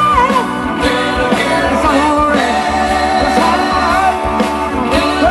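Live rock band playing at full volume, drums keeping a steady beat under a wavering sung or lead melody line.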